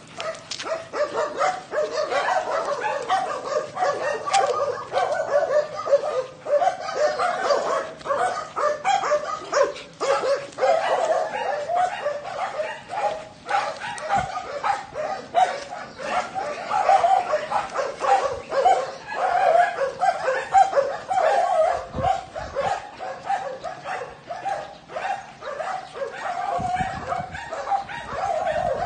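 Small dogs yipping and whining in a fast, almost unbroken run of short high calls.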